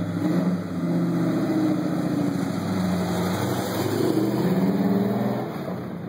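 Stock car V8 engine running at idle, its pitch rising and falling as the throttle is blipped.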